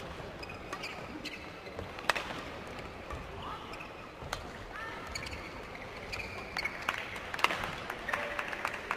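Badminton hall between rallies: the crowd chatters, with a few sharp knocks, the loudest about two, four and seven seconds in, and several short squeaks.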